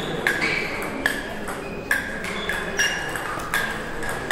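Table tennis rally: the celluloid-type ball clicking off the paddles and the Donic table in quick alternation, about one to two hits a second, each with a short bright ring.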